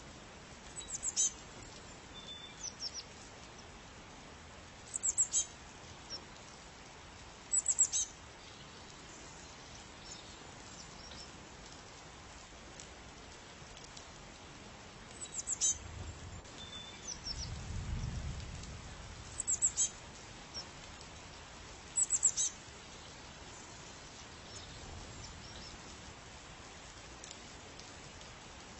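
A bird giving short, high chirping calls in little clusters every few seconds over a steady hiss, with a low rumble around the middle.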